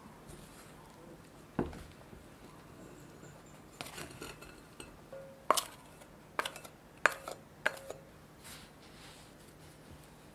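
Glass mixing bowl clinking as bread dough is scraped and knocked out of it onto a wooden board: a dull knock early, then a run of sharp clinks in the middle, the loudest four with a short glassy ring.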